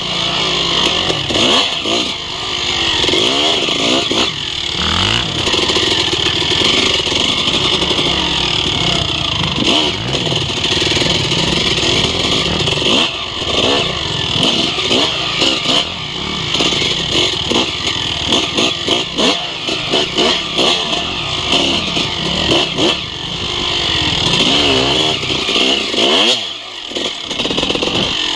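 Suzuki RM250 single-cylinder two-stroke engine being ridden hard. Its pitch rises and falls over and over with throttle and gear changes. It drops off briefly near the end before picking up again.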